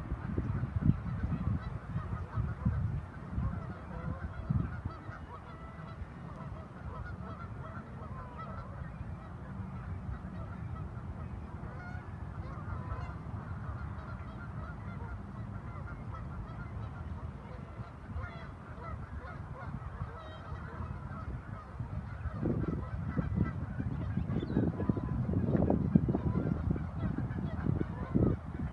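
A flock of geese honking, many overlapping calls throughout. A low rumble runs under the calls in the first few seconds and again over the last six or so.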